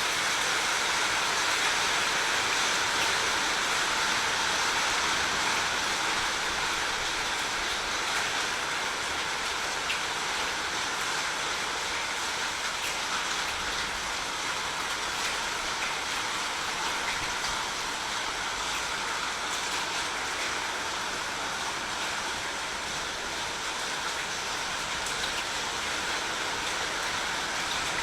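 Steady, even rushing of water, with a few faint ticks here and there.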